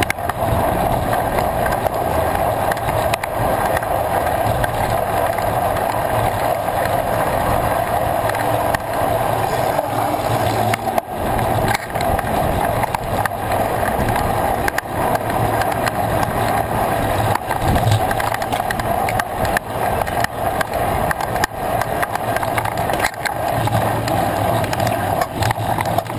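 Mountain bike rolling on asphalt in a group of riders, heard up close: a steady rush of tyre and wind noise with frequent small knocks and rattles.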